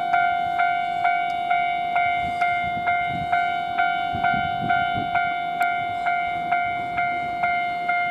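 Railway level-crossing warning bell ringing, an electronic clanging tone repeating evenly a little over twice a second, which signals an approaching train. A faint low rumble sits underneath in the middle.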